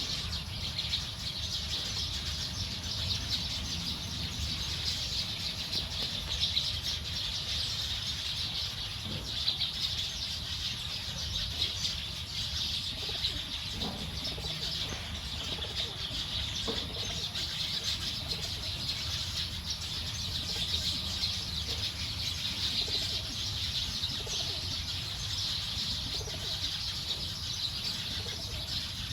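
A large flock of small birds chirping together in a dense, continuous chatter, as birds do when gathering to roost for the night. A steady low rumble sits underneath.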